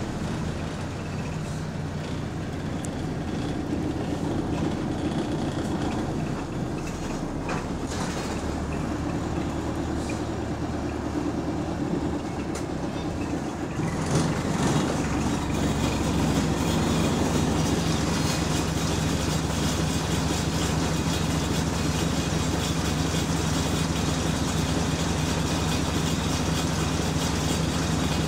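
Bus engine running, heard from inside the passenger saloon, with interior parts and fittings rattling. About halfway through the engine note gets louder and stays there, with a steady low hum.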